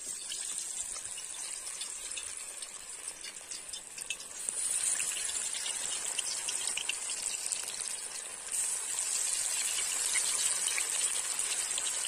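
Masala-coated fish pieces sizzling and crackling in hot oil in a large kadhai, the sizzle growing louder in two steps, about four seconds in and again about eight seconds in, as more pieces are dropped in.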